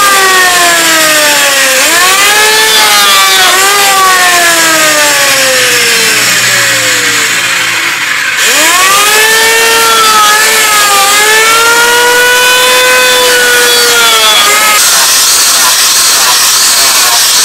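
Electric hand planer running on a wooden handle, its motor whine sagging in pitch as the blades bite into the wood and climbing back between passes. Over the last couple of seconds an angle grinder with a sanding disc sands the handle with an even hiss.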